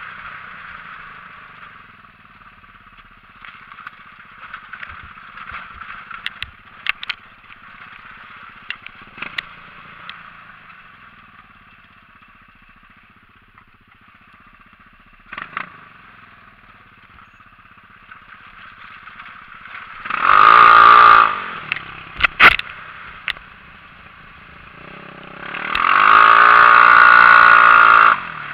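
Xinling 250 cc off-road buggy running over rough dirt, mostly low and quiet with the frame clattering and rattling over bumps. The engine revs hard about 20 seconds in and again near the end, where its pitch climbs as it accelerates.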